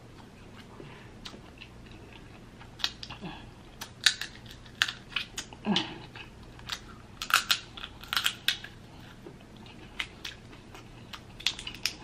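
Dungeness crab leg shells being cracked and pulled apart by hand, with eating sounds: irregular sharp cracks and clicks, sparse at first and thickest about a third of the way in and through the middle.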